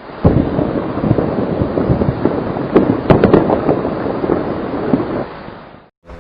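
Avalanche sound effect: a dense, heavy rumble of crashing noise with sharp cracks about three seconds in, fading out near the end.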